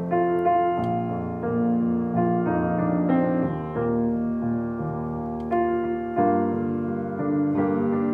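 Slow instrumental keyboard music, with held chords changing every second or so.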